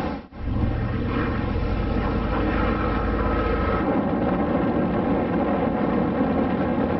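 Steady drone of propeller aircraft engines, with a brief dropout just after the start and a heavy deep rumble that eases off about four seconds in.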